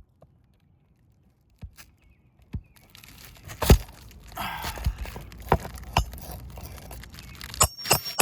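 Hammer striking a roofing nail into an asphalt shingle, several irregular sharp knocks with the loudest about a third of the way in. Between the blows the shingles rustle and scrape as they are held up.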